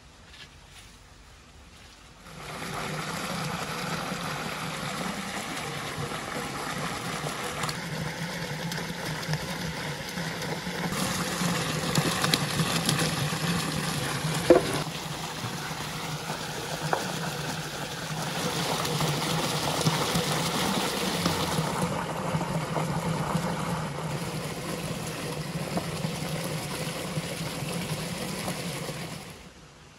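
Water of a small stream running steadily over stones as eggplants, peppers and tomatoes are tipped in and rinsed, with a single sharp knock about halfway through. The running water starts suddenly a couple of seconds in and stops just before the end.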